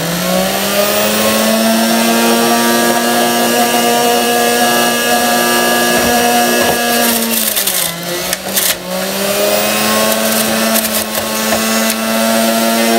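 Breville centrifugal juicer's motor running with a steady high whine, settling to speed in the first moment. About seven seconds in, leafy greens are pushed down the chute into the spinning cutter: the pitch sags for a couple of seconds under the load amid loud shredding crackle, then the motor picks back up to speed.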